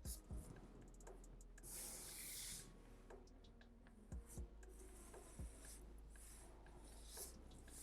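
Faint graphite pencil strokes scratching on paper: one longer stroke about two seconds in, then a few shorter ones and soft ticks of the pencil.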